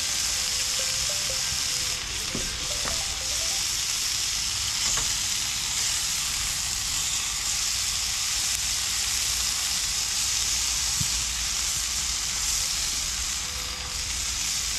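Fish fillets sizzling in canola oil in a pan on a butane camp stove, a steady frying hiss. A few faint taps come as the fillets are turned over by hand.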